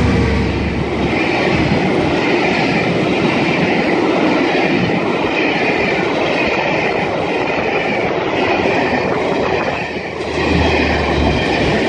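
Class 66 diesel locomotive and its freight train passing close by at speed, a steady loud rush of wheels rumbling and clattering on the rails, with a brief dip about ten seconds in.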